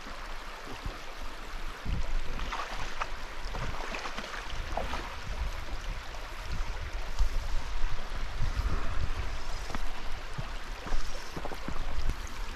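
River water running and rippling over rocky shallows, with an uneven low rumble underneath and a few faint knocks.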